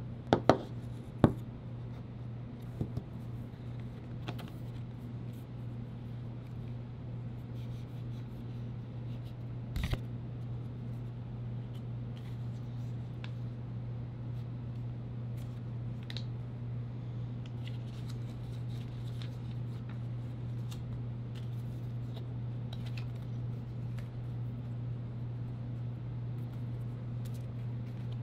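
Hands handling the card and paper inserts of an iPhone box: scattered light taps, clicks and rustles of card and paper. There are a few sharp clicks in the first second or so and another about ten seconds in, over a steady low hum.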